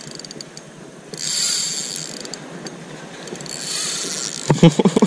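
Spinning reel's drag clicking in a fast buzz as a hooked fish pulls line off against the lightened drag, in two runs of about a second each. A few sharp knocks near the end.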